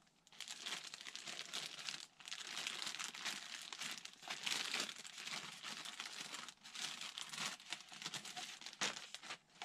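Clear plastic bag crinkling and rustling as a foam model-plane part is pulled out and unwrapped, in a run of crackles with a few brief pauses.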